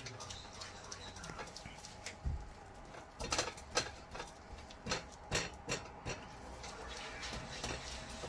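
A spatula stirring thick gram-flour halwa in a kadhai, roasting it: irregular soft knocks and scrapes against the pan, busiest in the middle.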